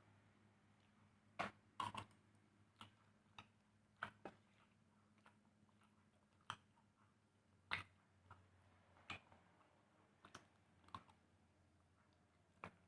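About a dozen light clicks and taps at uneven intervals, as kitchen utensils and dishes are handled during food preparation, over a faint steady hum.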